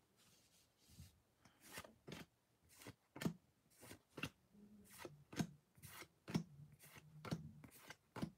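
Pokémon trading cards being flipped through one at a time, making faint soft slides and flicks of card on card, about two a second.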